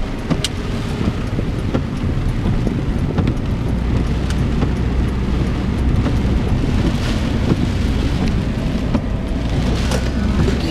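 Inside a car driving on wet roads: steady low rumble of engine and tyres on wet pavement, heavier through the middle, with wind buffeting the microphone and rain against the glass.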